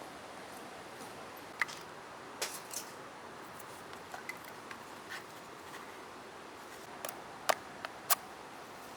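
Scattered short clicks and taps, like small objects being handled, over a steady hiss; the two loudest clicks come close together near the end.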